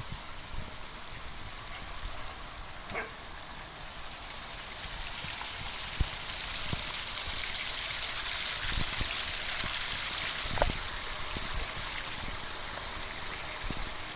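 Small rock waterfall spilling into a garden pond: a steady rush of running water that grows louder in the middle, with a few brief soft knocks.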